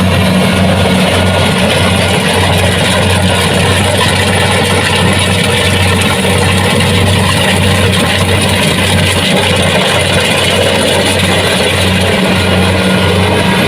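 Kubota DC70 Plus combine harvester running steadily at a constant engine speed, a loud, even drone with a low hum underneath.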